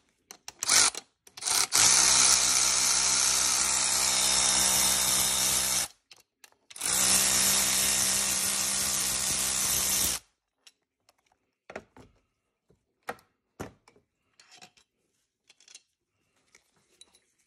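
Cordless power tool spinning a socket on an extension to back out the E10 Torx bolts of the N55 engine's oil filter housing: two steady runs of motor whine, about four and three seconds long, with a short pause between. Afterwards come a few light clicks and knocks of bolts and tools being handled.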